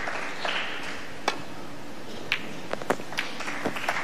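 Snooker break-off: a sharp click of the cue tip on the cue ball about a second in, then a scatter of clicks as the cue ball strikes the pack and the reds knock against each other and the cushions.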